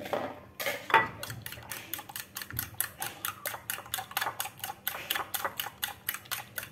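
A metal spoon beating a raw egg in a ceramic bowl, clinking against the side in a quick, even rhythm of about five or six strokes a second, with a louder clink about a second in.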